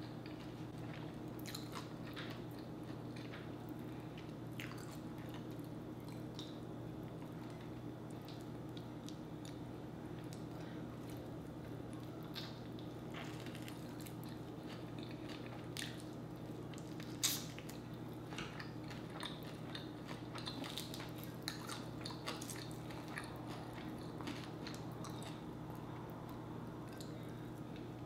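Close-up eating sounds of a person biting into and chewing sauced chicken wings: scattered crisp clicks and crunches over steady chewing, the sharpest crunch about 17 seconds in. A steady low hum runs underneath.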